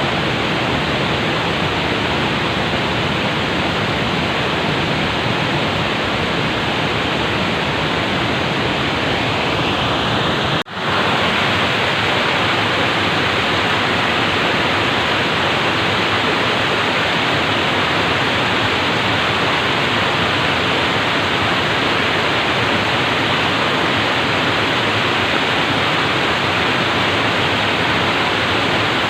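Water flowing calmly and steadily in an even rushing hiss, broken once by a split-second dropout about a third of the way in.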